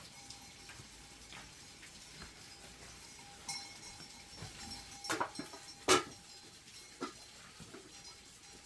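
A few sharp knocks and clicks, the loudest about six seconds in.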